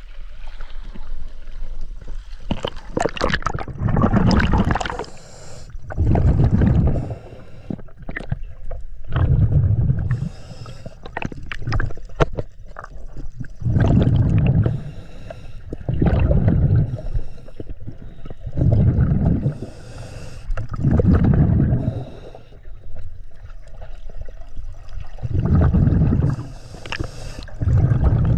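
Water sloshing and gurgling in regular surges about every two to three seconds.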